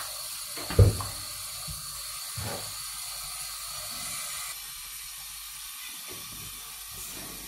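Kitchen tap running onto greens in a stainless steel sink, a steady hiss of water. A sharp thump a little under a second in and a softer knock about two and a half seconds in.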